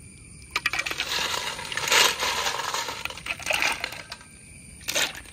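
Snail shells clattering as a steel bowlful of snails is tipped into a clay pot: a dense rattle of small hard clicks that peaks about two seconds in and thins out, then one sharp clack near the end.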